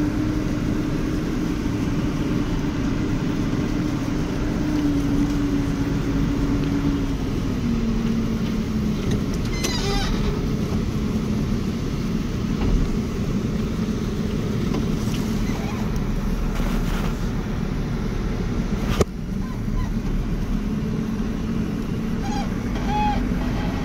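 Tractor engine running steadily under way, heard from inside the cab, its hum dropping a little in pitch about seven seconds in. A single sharp click sounds near the end.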